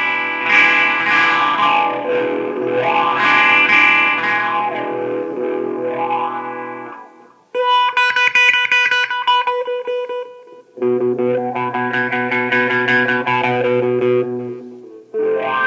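Les Paul electric guitar played through a 1982 "transition era" Dunlop Cry Baby wah pedal into a Marshall Haze 15 head and 4x12 cabinet. Chords are held while the pedal is rocked through its full sweep, so the tone rises and falls in slow arcs. New chords are struck about seven and a half, eleven and fifteen seconds in.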